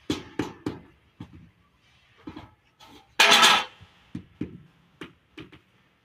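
Irregular sharp taps and knocks from hand tools and ceramic floor tiles during tile setting, with a short, louder scrape a little after three seconds in.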